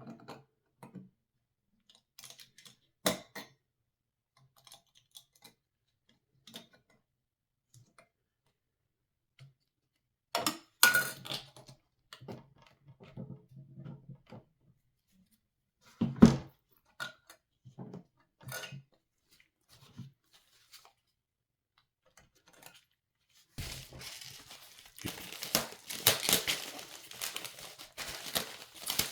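Hands handling PC parts and their packaging: scattered light clicks and knocks with a few louder thuds, then, near the end, continuous crinkling and tearing of packaging.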